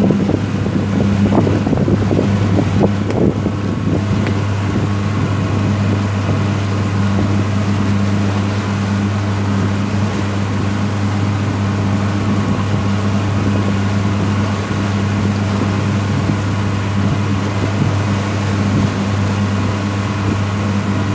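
Engine of a traditional abra boat running at a steady, even drone while under way.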